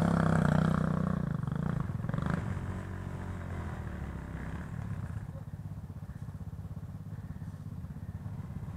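Dirt bike engine running loudly at first, easing off over about two seconds to a low, steady putter.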